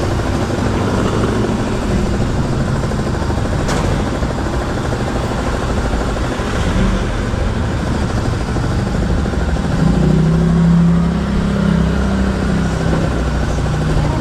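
Motorcycle engine running while riding, with road and wind noise; the engine note gets louder for a couple of seconds about ten seconds in.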